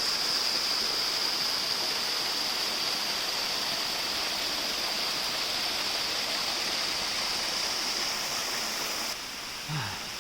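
Steady rush of water from a small waterfall tumbling in many little cascading steps down a rock face. About nine seconds in it drops to a quieter rush.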